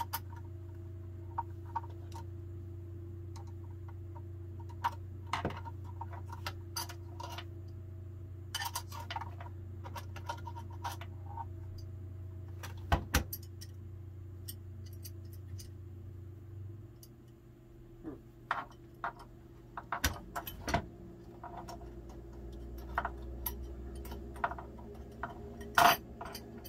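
Small metal parts clicking and clinking as a bipod adapter stud is fitted and jiggled onto a Ruger Mini-14's forend: irregular sharp clicks, the loudest about halfway and near the end. A steady low hum runs underneath and drops away about two-thirds of the way through.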